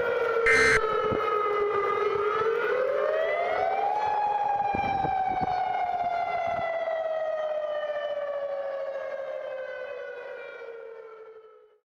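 Civil defense siren: its pitch dips, rises over about two seconds, then slowly winds down and fades out near the end. Just under a second in comes a short burst of EAS digital data tones.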